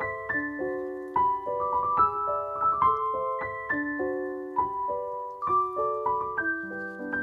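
Background piano music: a calm melody of single notes over soft chords, with notes following one another about every half second.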